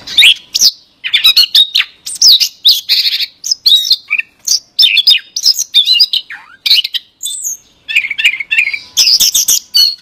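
Male Siberian rubythroat singing a long, varied warbling song of fast, high-pitched phrases, separated by short pauses.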